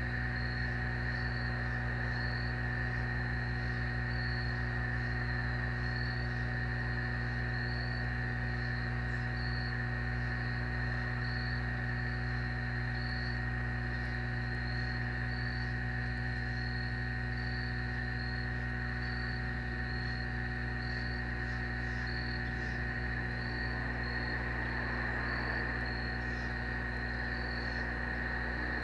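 Crickets chirping at about one chirp a second, over a steady low hum.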